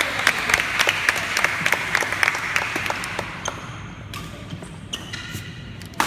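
Scattered hand clapping echoing in a large sports hall at the end of a badminton rally, fading out after about three seconds, with a few sharp clicks and knocks afterwards.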